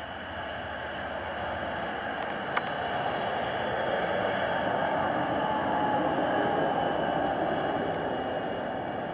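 BAe 146's four turbofan engines during the landing roll: a steady high whine over a broad rumble that swells over the first few seconds and eases slightly near the end. There is one short click about two and a half seconds in.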